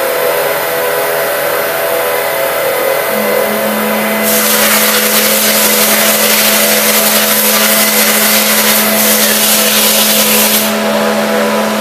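Matsuura MC-600V vertical machining center running under power, with a steady multi-tone whine as its table and spindle head traverse. A lower steady hum joins about three seconds in, and a loud hiss starts about four seconds in and cuts off shortly before the end.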